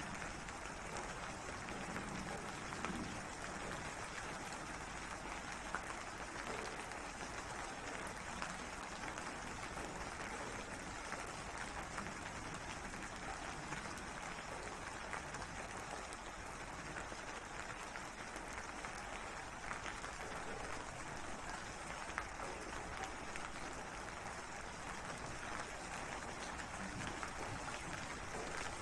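Steady rain falling, an even hiss with a few sharper drop ticks scattered through it.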